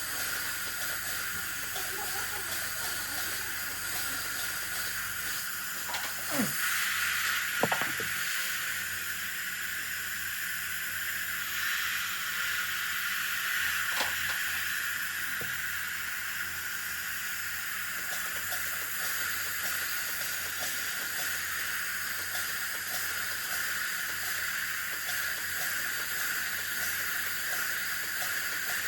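Steady hiss of dental treatment equipment during access cavity preparation on a lower molar, with a few clicks and taps, the sharpest about six and a half and eight seconds in.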